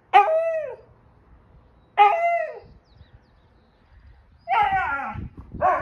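Husky puppy calling out four times, each call under a second and falling in pitch: two about two seconds apart, then two more in quick succession near the end.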